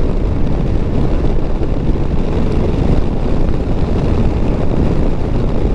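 Royal Enfield Meteor 350's single-cylinder engine running steadily in fifth gear at about 45 mph, holding speed, mixed with wind and road noise on the microphone.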